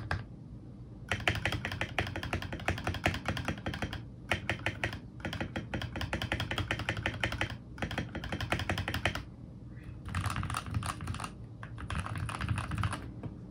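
Keychron K8 Pro mechanical keyboard with Gateron G Pro Red linear switches being typed on fast, in runs of rapid keystrokes separated by short pauses.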